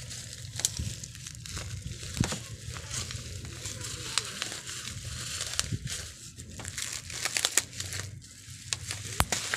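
Thin black plastic parcel wrapping crinkling and crackling as scissors cut through it and hands pull it open, with many sharp little clicks.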